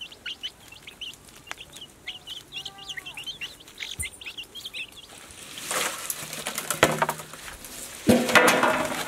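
Chicks peeping in quick high chirps, with a hen clucking a few times. About five seconds in, a rustling clatter of raw prawns being spread and handled on steel plates, with its loudest crash about eight seconds in.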